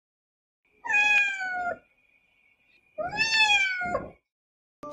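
A cat meowing twice: two drawn-out meows about a second each, both falling in pitch, roughly two seconds apart.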